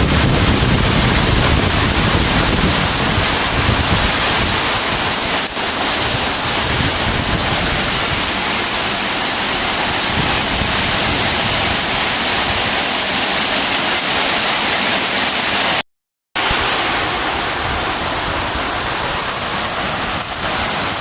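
Heavy rain pouring down steadily in a storm. The sound drops out completely for about half a second roughly three-quarters of the way through.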